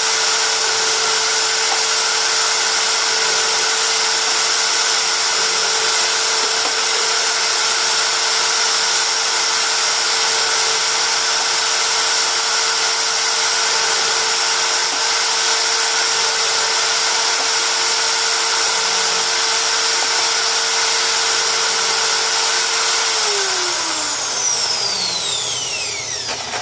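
Hammer drill clamped in a vise, running in reverse at a steady, loud whine while its bit cuts the primer-pocket crimps out of .223/5.56 NATO brass cases. About 23 seconds in the motor is let off and winds down, its pitch falling until it stops.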